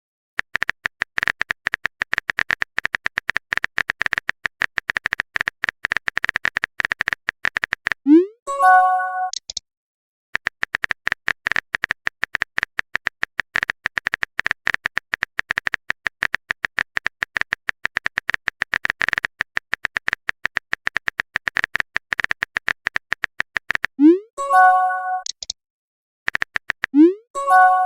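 Rapid, steady clicking of a phone-keyboard typing sound effect. It stops three times for a short message-notification chime, a quick rising blip followed by a bright few-note tone, about eight seconds in and twice near the end.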